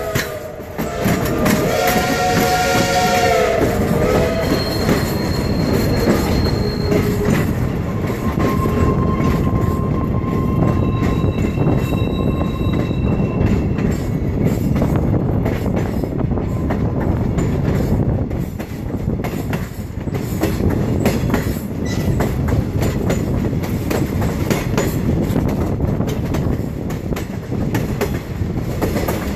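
Steam locomotive whistle blowing several notes at once, the pitch sliding down as it shuts off about four seconds in. Then the steady rumble and clatter of the train's wheels on the rails, with a few brief high wheel squeals.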